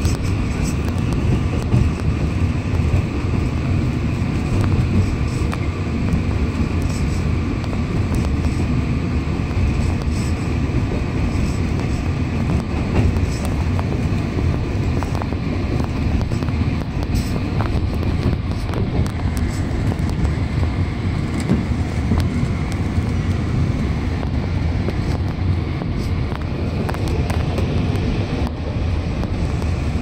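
Alishan Forest Railway narrow-gauge train running, heard from inside the carriage: a steady low rumble of wheels on rail and the train's running gear.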